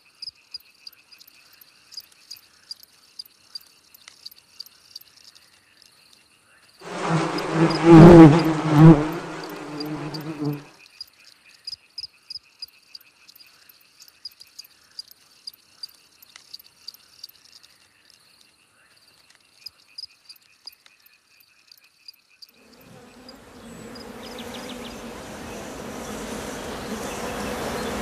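Steady high insect-like chirping in rapid regular pulses. About seven seconds in it is broken for some four seconds by a loud, low pitched sound made of several tones. Near the end a dense buzzing drone swells in and keeps getting louder.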